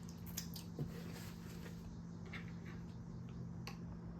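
Faint eating sounds: soft chewing with scattered small clicks and smacks, over a low steady hum.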